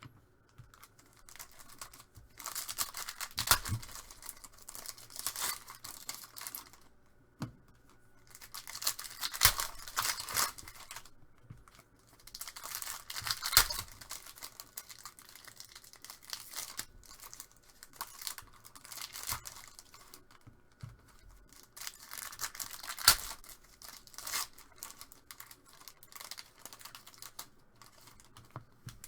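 Trading-card pack wrappers being torn open and crinkled, in several bursts of a few seconds each, with lighter rustling and clicks between.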